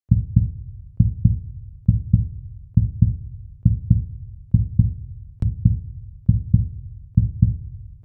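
Heartbeat sound effect: deep double thumps, lub-dub, repeating steadily a little faster than once a second.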